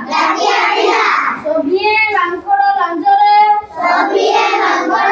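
Children's voices chanting together in a sing-song, holding some notes long.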